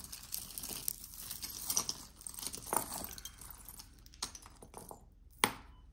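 Costume jewelry being handled: necklace chains and beads jingling and clinking together with rustling, busiest in the first three seconds, then a few scattered clinks and one sharp click about five seconds in.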